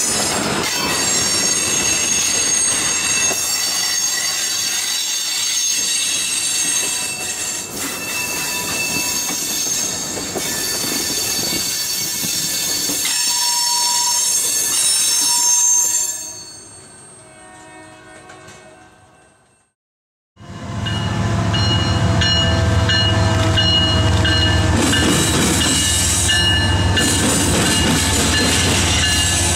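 Freight cars rolling past on the rails: covered hoppers and tank cars clattering by with steady high-pitched wheel squeal. This fades out to a moment of silence about two-thirds of the way in. Then a second freight train's RoadRailer trailers roll past with a louder, low steady rumble.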